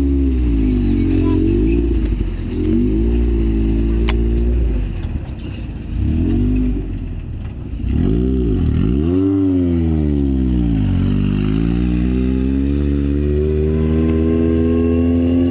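Off-road race vehicle's engine revving as it pulls out of the pits, its pitch rising and falling several times, then climbing steadily near the end.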